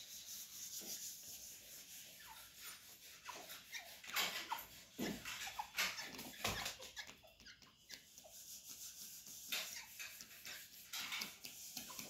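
Grey francolins giving short, soft chirping notes, with scattered clicks and scrapes as they peck at a gritty cement floor.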